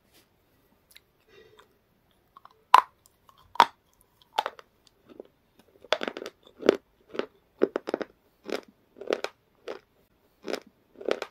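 Close-miked crunching bites and chewing of black flaky chips: two sharp crunching bites about three seconds in, then steady crunchy chewing about twice a second from about six seconds on.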